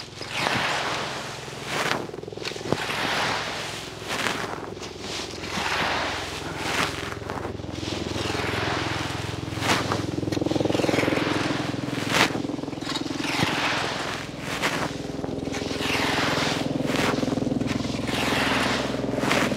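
A rake scraping and dragging through dry fallen leaves, one stroke about every second. A steady engine hum runs underneath, stronger in the second half.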